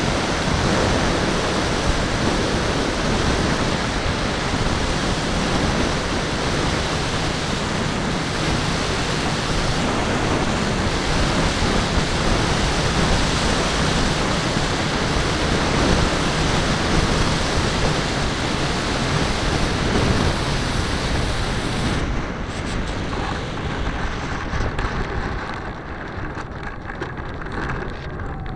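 Steady rush of wind and motor noise recorded by a model airplane's onboard camera in flight. About 22 seconds in, the noise thins and grows a little quieter as the plane comes down to land.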